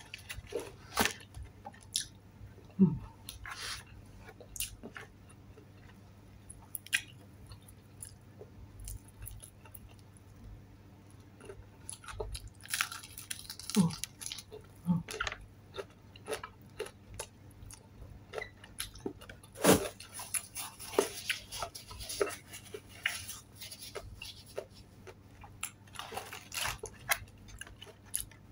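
Close-up chewing and biting of crispy Jollibee Chickenjoy fried chicken: irregular crunches, bites and wet mouth sounds, with a few busier stretches of crunching and paper rustling.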